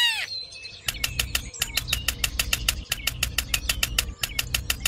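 A small motor running with a rapid, even clicking of about six clicks a second over a low hum; the hum drops out briefly every second and a half or so.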